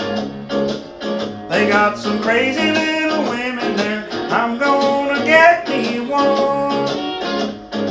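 Country-style music on acoustic guitar, with a melody line of sliding, bending notes.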